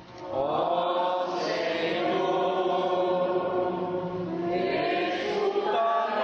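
Liturgical chant sung by voices in long held, slowly gliding notes, starting just after a short lull.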